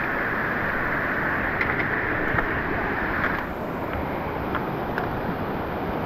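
Steady rush of a stream's waterfall, with a few faint clicks over it; the rush softens a little about three and a half seconds in.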